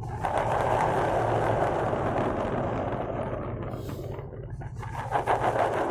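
Glass marbles rolling and rattling in the hollows of a congklak (mancala) board: a continuous rolling rattle full of small clicks, easing off briefly about two thirds of the way through, then a denser burst of clicking near the end.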